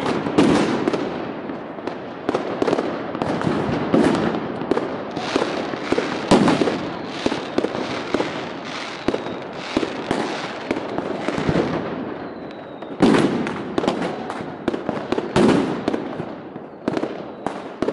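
Consumer fireworks and firecrackers going off all around: a dense, continuous run of bangs and crackling, with louder clusters of bangs in the last third.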